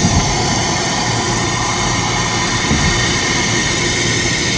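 Steady road and engine rumble heard from inside a car cruising at motorway speed.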